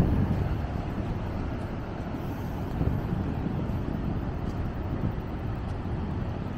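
Wind buffeting the microphone: a low, fluctuating rumble that is strongest at the very start and eases after the first second.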